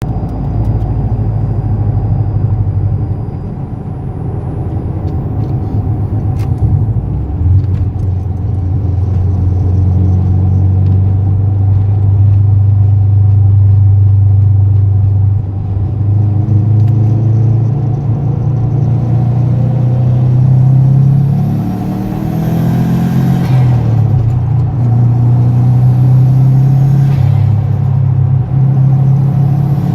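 Subaru Impreza WRX STI's turbocharged flat-four engine pulling along the road, rising in pitch as it builds boost. About three-quarters of the way in the throttle lifts and turbo flutter hisses as the engine note drops, with a fainter hiss a few seconds later.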